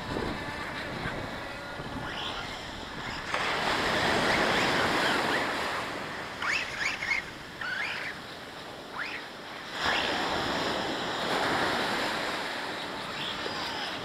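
Sea surf breaking and washing up a sandy beach, swelling louder as a wave runs in about three seconds in and again about ten seconds in, then easing.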